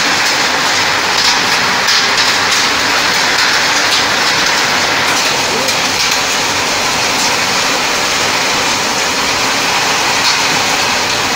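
Heavy rain with hail pelting down onto wet concrete and ground: a steady, dense hiss with scattered sharp ticks of hailstones striking.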